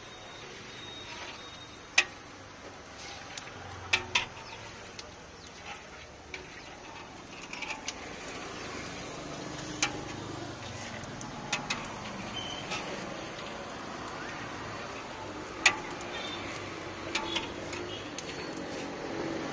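Sharp metal clinks of a slotted ladle and steel basin knocking against an iron frying kadai, single or doubled strikes a few seconds apart, over a steady hum of passing street traffic.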